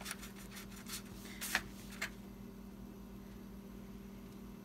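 Paintbrush dabbing and scraping in paint on a plastic plate palette, a few soft scratchy strokes in the first two seconds, then only a faint steady hum.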